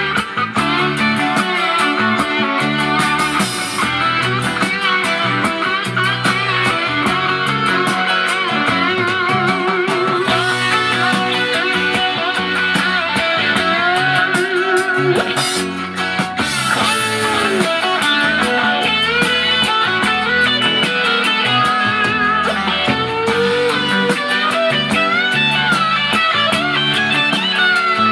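Recorded music led by guitar, with plucked and bending notes over a full band backing and no singing heard.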